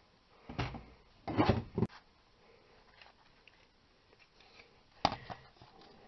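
A screwdriver scraping rust from the bearing bore of a Ford Ranger's front steering knuckle, cleaning it for a new wheel hub bearing. It comes as three short scrapes: two close together in the first two seconds and one about five seconds in.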